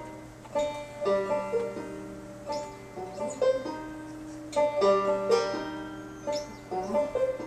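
A plucked string instrument played live, picking a melody of separate notes that ring on between the plucks.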